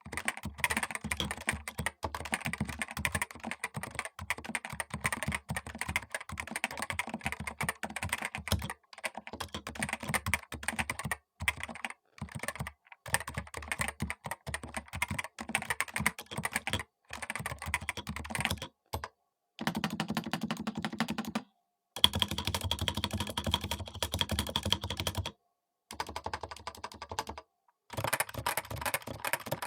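Typing on a Topre Realforce RGB TKL keyboard set straight on a bare desk, its Topre electrostatic capacitive keys giving fast, continuous keystrokes with a few short pauses. About two-thirds of the way through there is a stretch with deeper, heavier key strikes.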